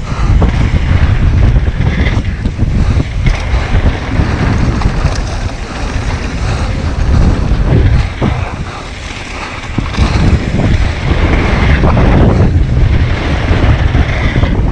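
Wind buffeting the microphone and tyres rumbling over a dry dirt trail as a mountain bike descends at speed, with scattered knocks from the bike rattling over bumps. The noise eases for a moment about eight seconds in, then picks up again.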